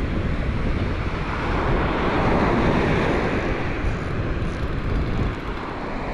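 Wind buffeting the microphone over surf washing on the beach: a steady rushing noise that swells about halfway through and eases near the end.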